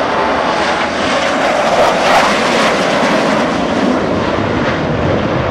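Jet engine noise from a formation of F/A-18 Hornet fighters flying past, a dense rushing sound that swells to its loudest about two seconds in.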